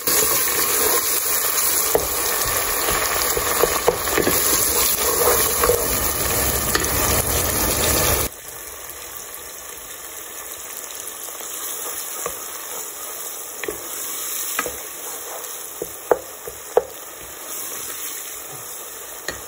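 Onion-tomato masala sizzling in a pot just after water is added, stirred with a wooden spoon. About eight seconds in the sizzle drops suddenly to a quieter, steadier frying, with a few sharp clicks of the spoon against the pot.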